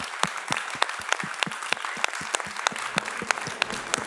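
Audience applauding, a steady patter of many hands with sharp individual claps close to the microphone, about three a second, standing out above it.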